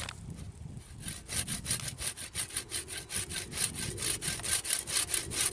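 Fine-toothed hand pruning saw cutting through the live trunk of a young wild apple tree in quick, even strokes. These are the final strokes before the trunk is severed, taken gently so the bark does not tear.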